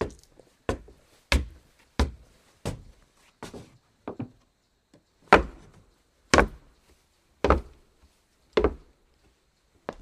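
Footsteps on a wooden floor, each step a sharp knock: quicker steps at first, a short pause about four seconds in, then slower, heavier steps about one a second.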